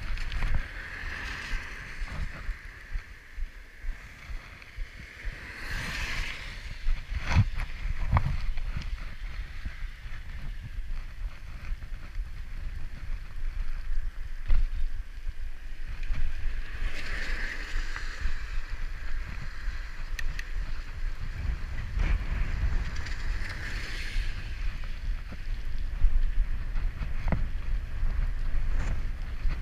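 Bicycle ride on a wet, broken road heard through an action camera's microphone: wind rushing over the microphone, a constant low rumble from the tyres with a hiss that swells several times, and two sharp knocks from bumps about seven and eight seconds in.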